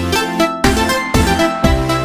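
Background electronic dance music with a steady beat of about two beats a second.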